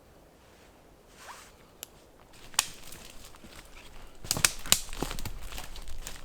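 A zipper being pulled amid rustling and a few sharp clicks of camping gear being handled. The first couple of seconds are quiet, and the handling starts about halfway through.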